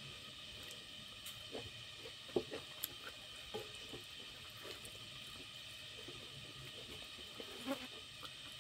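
Rice being eaten by hand from a stainless steel plate: soft squishes as fingers mix and scoop the rice, with scattered light taps and scrapes, over a faint steady hiss.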